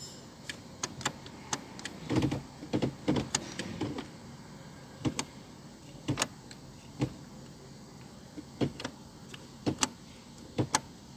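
Irregular clicks and knocks from a Ford Focus automatic gear selector being worked through its positions, busiest about two to four seconds in.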